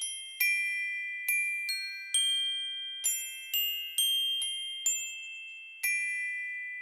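Background music: a slow melody of high, bell-like struck metal notes in the manner of a glockenspiel, about two notes a second, each ringing on and fading.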